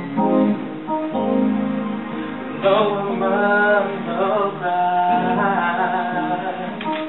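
Piano playing sustained chords, with a voice singing over it. The singing is strongest and wavers in pitch from about three seconds in.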